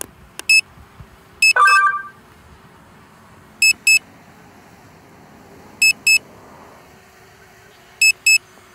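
Hubsan Zino Mini Pro drone controller beeping in quick high double beeps, one pair about every two seconds, an alert while the drone is on automatic return-to-home. A brief lower two-note tone sounds about two seconds in.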